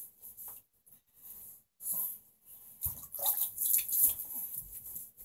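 Wet rubbing and splashing in short, irregular bursts as hands work soap into a wet Chihuahua's fur in a bathtub.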